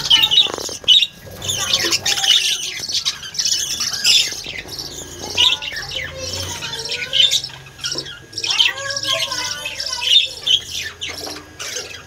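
A flock of budgerigars chattering: a continuous stream of short, sharp chirps and squawks mixed with wavering warbles.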